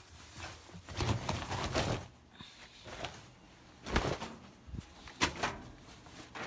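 Laundry being pulled from a washer and loaded into a dryer: a stretch of cloth rustling, then a few sharp knocks and clunks.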